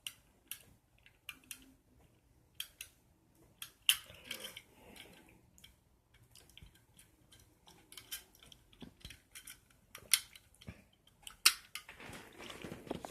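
Plastic Lego bricks being handled: an irregular string of sharp clicks and clatters, with a few louder snaps and some rummaging through the pieces.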